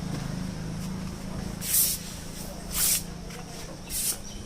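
A vehicle engine running low and steady, fading, with three short hissing noises about a second apart.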